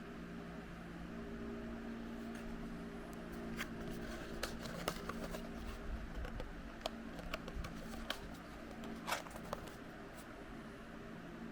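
Small plastic toys and packaging being handled: scattered light clicks and taps, densest in the middle with the sharpest one about nine seconds in, over a steady low hum.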